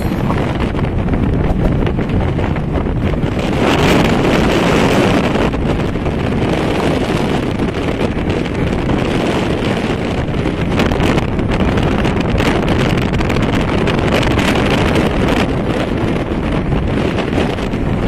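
Speedboat running at speed on twin Yamaha 200 hp two-stroke outboards, heard under heavy wind buffeting on the microphone. The noise is steady, swelling a little about four seconds in.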